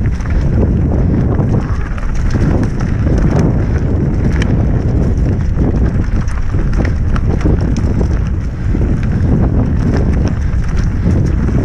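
Mountain bike riding fast down a leaf-covered dirt single track: steady wind rush over the microphone, with the tyres rolling over leaves and loose dirt and frequent small knocks and rattles from the bike over bumps.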